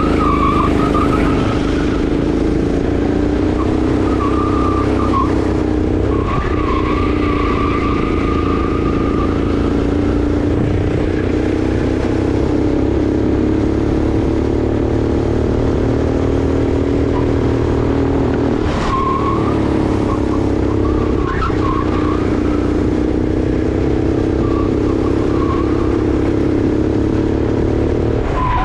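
Sodi RX8 kart's 390 cc four-stroke engine running hard on a lap, its pitch rising and falling a little with the throttle. A higher squeal comes and goes several times, the tyres sliding through corners.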